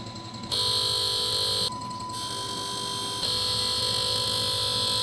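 Bosch common-rail diesel injector firing on an injector test bench: a steady high buzz with a constant tone under it, switching up and down in loudness and pitch about every second as the bench steps through its test points.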